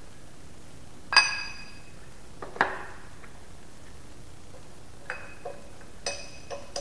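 Metal clinks from a clamshell bearing puller being handled and fitted around the bearing on a Rotax 503 crankshaft: one sharp ringing clink about a second in, another shortly after, then a few lighter clinks near the end.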